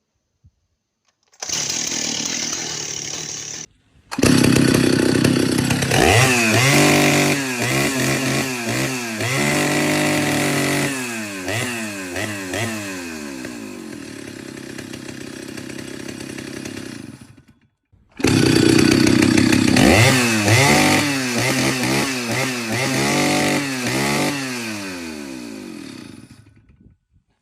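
Stihl two-stroke chainsaw engine revved up and down over and over, its pitch rising and falling in quick sweeps between steadier stretches. The sound breaks off abruptly a few times.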